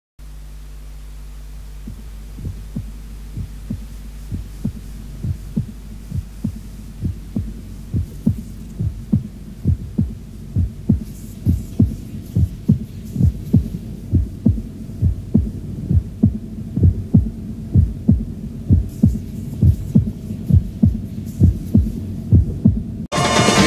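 Heartbeat sound effect, a low thumping at about two beats a second over a steady low hum, growing louder; just before the end it cuts straight into a pop song.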